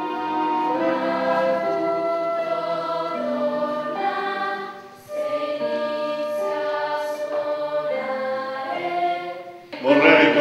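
A choir singing slow, held chords, breaking off briefly about five seconds in. Near the end a man's voice starts singing louder and close up.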